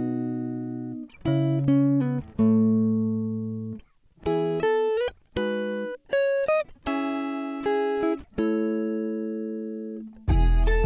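Background music: guitar chords, each struck and left to ring out, with fuller backing and bass coming in near the end.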